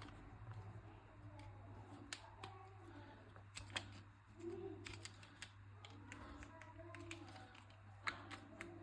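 Faint, irregular small clicks and scrapes of tools working on the plastic shell of a counterfeit AirPods charging case to pry it open, over a steady low hum.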